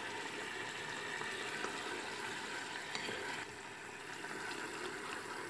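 Onion and raisin mixture in sugar syrup bubbling and sizzling in a pan, with small crackles and pops, as a wooden spatula stirs it; a little quieter from just past halfway.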